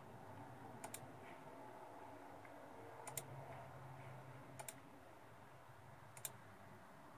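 About five faint, sharp clicks from operating a laptop computer, two of them quick double-clicks, over near-silent room tone.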